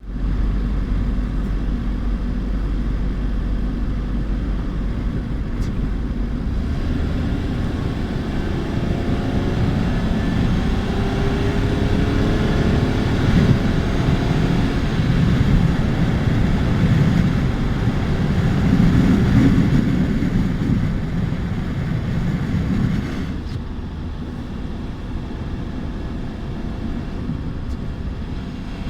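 Renault Twingo 3 engine and exhaust running. It grows louder with a rising pitch through the middle, then drops back to a steady lower sound about three-quarters of the way through.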